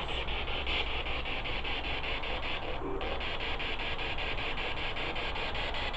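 Spirit box sweeping the radio band: steady static hiss chopped into short even steps several times a second, with a brief tone about three seconds in.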